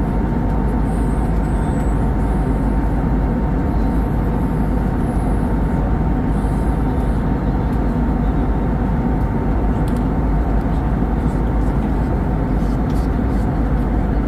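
Steady in-flight cabin noise of an Airbus A320neo, heard from a window seat beside the engine: a constant rush of engine and airflow with a faint steady whine.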